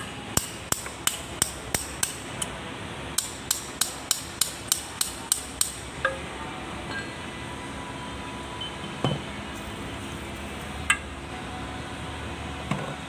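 Quick, sharp metal-on-metal taps on steel propeller-shaft parts, in two runs of about eight strikes each at roughly three a second. These are followed by a few scattered clinks of metal parts being handled.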